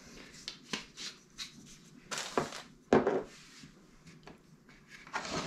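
Pepper being shaken from a small spice container over a plastic mixing bowl: light taps and clicks, a short rattling shake a little after two seconds, then a sharper knock about three seconds in as the container is set down on the counter.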